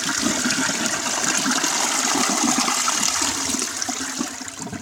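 A 2000s Crane Galaxy toilet flushing: water from the tank rushes steadily into the bowl, and the rush begins to die down near the end.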